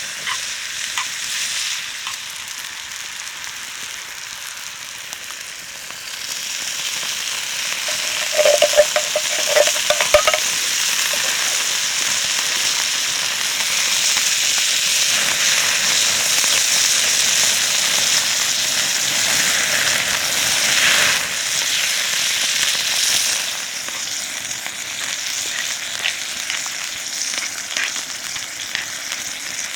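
Food sizzling as it fries in a pan, a steady hiss that grows louder about six seconds in. A few short squeaks come about eight to ten seconds in.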